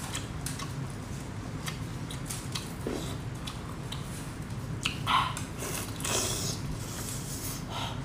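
Close-up chewing and wet mouth clicks of someone eating a cooked tiger prawn, with two louder wet smacks about five and six seconds in. A low steady hum underneath.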